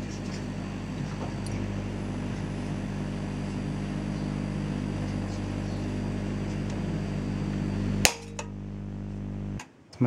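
A microwave-oven magnetron rig's high-voltage transformer hums steadily while it powers a plasma glowing inside an incandescent bulb. About eight seconds in comes a single sharp crack as the overheated bulb glass bursts. The hum then changes and cuts off about a second and a half later.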